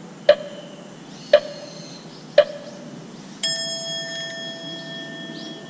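Three sharp clock-like ticks about a second apart, then a bell-like ding about three and a half seconds in that rings on and slowly fades: a clock-tick-and-ding sound effect for time passing.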